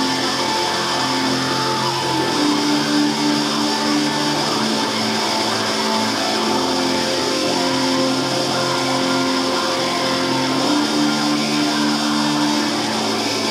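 Instrumental music made of long held notes, with a short pulsing figure that comes in twice, about two seconds in and again near the end.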